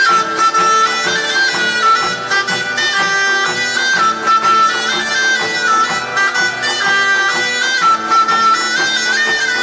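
Pastellessa band of bottari playing: a stepping pipe melody over a steady drone, with barrels beaten in rhythm beneath it.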